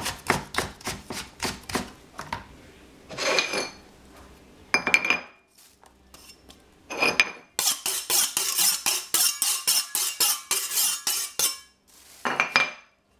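Kitchen knife chopping capsicum on a cutting board in quick runs of about five strokes a second, the knife blunt. A few separate ringing clinks come between the runs.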